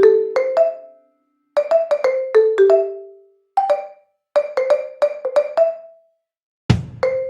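Background music: short melodic phrases of struck, quickly fading notes separated by brief pauses, with a steady beat and low drum coming in near the end.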